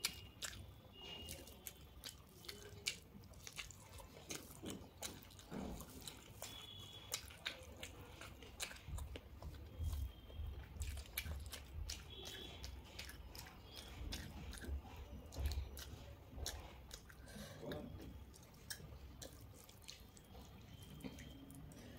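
Close-up eating sounds: chewing a mouthful of rice and omelette, with many short, sharp wet mouth clicks and smacks throughout.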